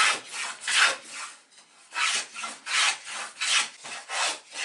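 Small wooden hand plane shaving a thin pine stick with quick repeated strokes about every half second, with a brief pause about a second and a half in. It is knocking the corners off a square-section mast to start rounding it.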